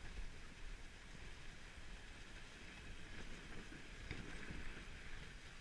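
Dog sled gliding over a packed snow trail behind a running dog team: a steady rushing hiss and low rumble from the runners on the snow.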